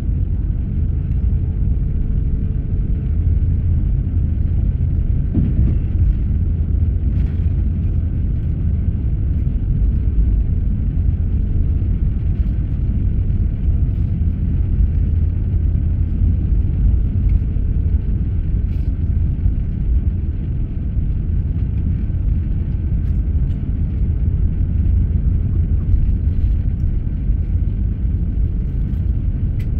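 Airbus A350-900 taxiing, heard from inside the cabin: a steady low rumble of its Rolls-Royce Trent XWB engines at taxi power and the wheels rolling over the taxiway.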